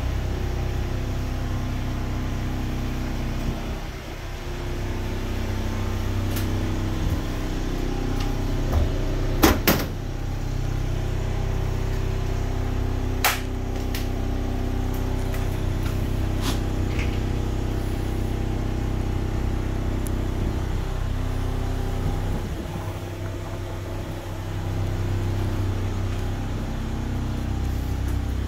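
Kubota lowboy generator running steadily, a low engine hum. A few sharp clicks cut through it, the loudest a third of the way in.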